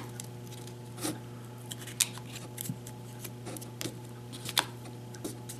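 Cardstock tabs being pressed and folded down by fingertips onto a glued disc: scattered light paper clicks and crackles over a steady low hum.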